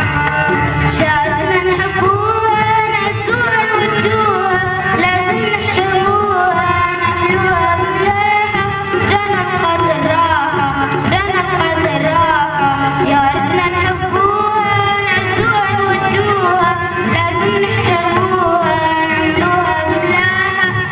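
Singing of an Arabic song over instrumental accompaniment.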